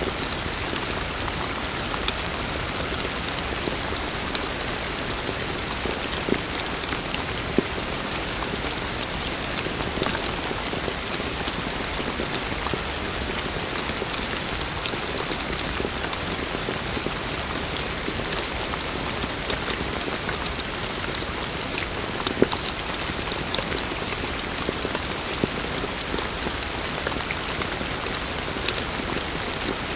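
Heavy rain falling steadily, a dense even hiss with individual drops striking a surface as sharp taps scattered throughout.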